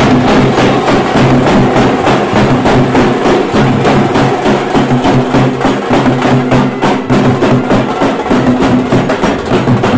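Background music with a quick, steady percussive beat over held low notes.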